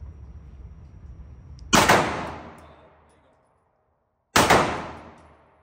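Two Glock pistol shots about two and a half seconds apart, each a sharp crack followed by an echo dying away over a second or more.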